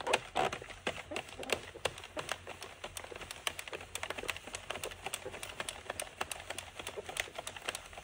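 Addi King circular knitting machine turned by its hand crank: a quick, steady run of clicks as the needles rise and fall past the carriage.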